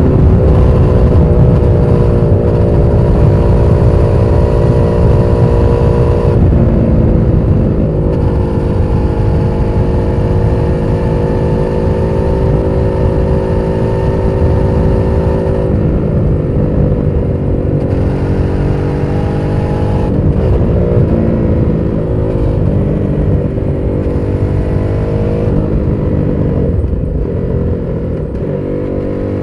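Aprilia SXV550 supermoto's V-twin engine running loudly under way. Its pitch changes several times as the revs rise and fall.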